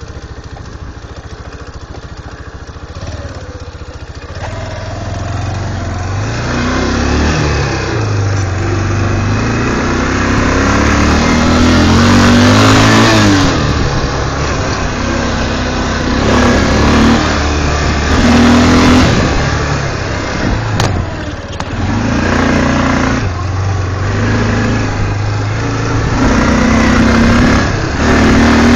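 ATV engine running while the quad is ridden along a dirt trail, revving up and easing off again and again as the throttle changes. It is quieter for the first few seconds, then louder.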